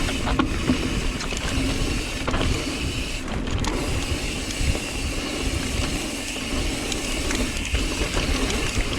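Mountain bike running down a dirt trail: tyres rumbling over the ground with constant rattling and clicking from the chain and frame, and the rear freehub ratcheting in a steady buzz while the bike coasts.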